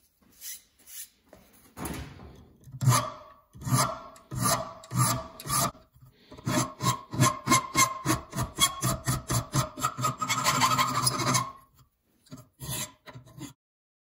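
Hand file rasping over a small steel lock-back knife part held in a bench vise. A few slow, separate strokes come first, then a fast run of short strokes through the middle, and after a brief pause a few last strokes near the end.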